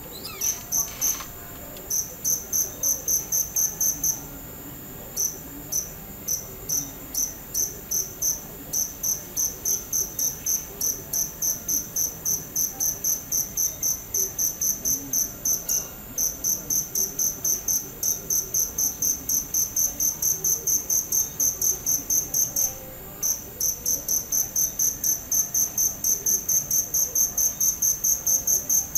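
Cricket chirping: short, high-pitched chirps repeated evenly at about three a second, broken by a few brief pauses, one of them about a second in.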